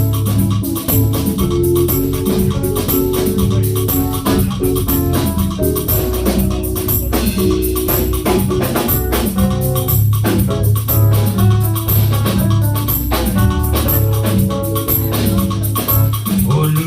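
Live church worship band playing an instrumental passage: organ or keyboard chords with a steady beat.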